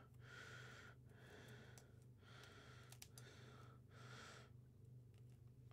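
Near silence: faint breathing close to the microphone, about one breath a second, stopping near the end, over a low steady hum.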